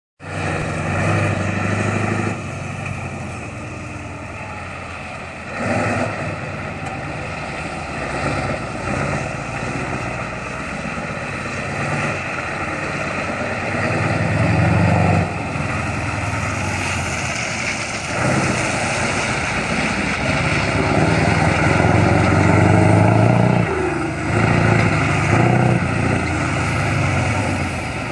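Scania semi-truck tractor unit's diesel engine running hard through a cone slalom, the engine swelling and dropping again and again as the driver accelerates and eases off between turns, loudest in the second half.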